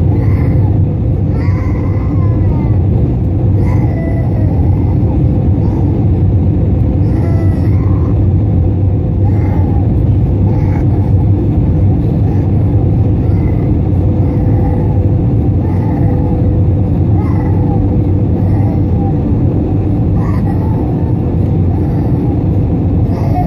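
Jet airliner cabin noise heard from a window seat over the wing: a steady, loud rumble of the engines and airflow with a steady hum running through it.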